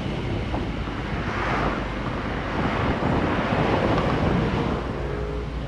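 Wind rushing over the microphone of a moving vehicle, on top of steady road and traffic noise, swelling louder twice in the middle.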